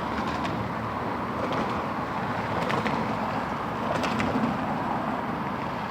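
Steady outdoor background rumble of road traffic, with a few faint clicks.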